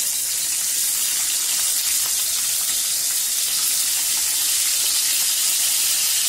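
Chicken leg pieces coated in ginger paste sizzling steadily in hot oil in a frying pan as they are turned over; the ginger paste makes the oil bubble up.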